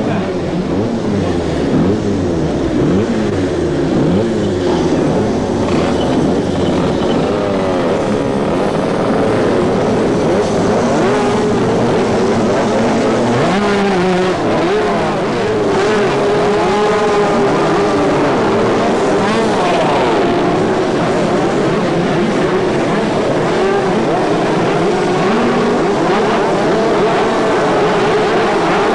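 Several 250 cc two-stroke superkart engines running and revving at once, their pitches rising and falling over one another. From about halfway a steadier, held engine note runs underneath.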